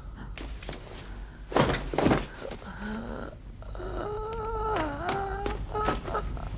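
Two heavy thuds about half a second apart, as of a body falling to the floor, then a drawn-out moan that wavers and dips, followed by a few small knocks.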